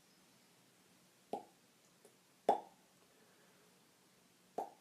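Kiss sounds made with the lips as mouth percussion: three short, sharp smacking pops, the middle one the loudest.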